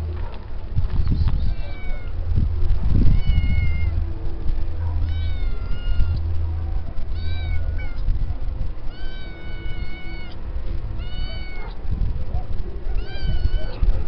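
A cat meowing repeatedly, about seven separate calls a second or two apart, with one longer, drawn-out meow near the middle, over a steady low rumble.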